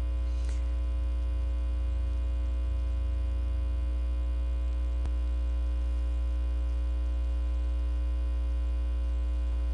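Steady electrical mains hum with a buzzy stack of overtones, running unchanged. There is a faint click about halfway through.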